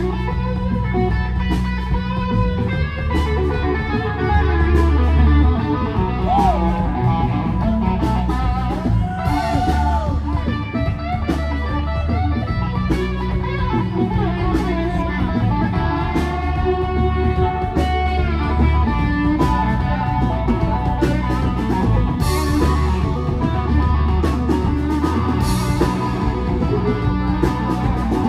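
Blues-rock band playing live with no singing: electric guitar out front over bass and drums, with bending held notes.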